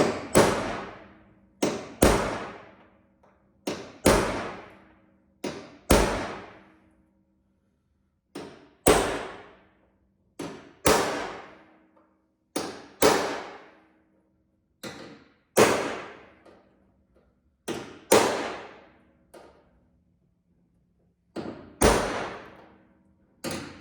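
Hammer striking a blunt punch against a car's steel outer rear wheel-arch panel to mark spot-weld positions, about a dozen blows roughly every two seconds, often a light tap followed by a harder strike. Each blow rings out briefly in the sheet metal.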